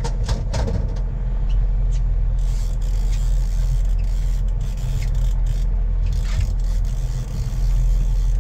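Boat engine running steadily as a low drone, with a few light knocks and rattles over it.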